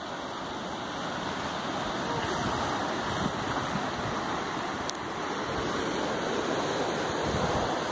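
Surf washing onto a sandy beach: a steady rush of breaking waves that builds over the first couple of seconds and then holds, with wind buffeting the microphone.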